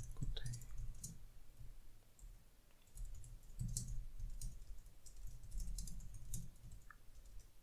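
Typing on a computer keyboard: irregular quick key clicks, with a short pause about two seconds in.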